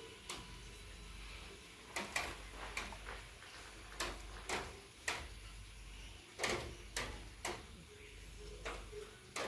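Irregular sharp clicks and light knocks, about a dozen, spaced unevenly over a faint steady background hum.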